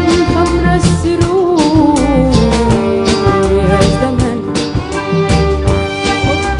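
Sudanese popular song: a band plays a wavering melody over a steady percussion beat and bass, and a female voice sings near the end.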